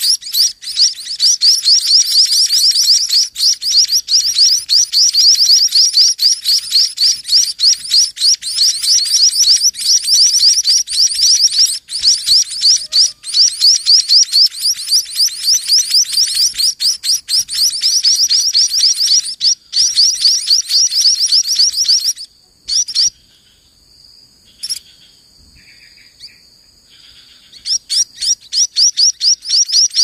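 Munia nestlings begging, a fast, continuous run of high-pitched chirps as the parent feeds them. The calling breaks off for a few seconds about three-quarters of the way through and starts again near the end.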